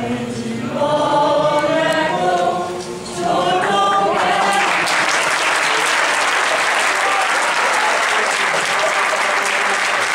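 A group of voices singing together in chorus, then, about four and a half seconds in, an audience breaks into steady applause that drowns out the singing.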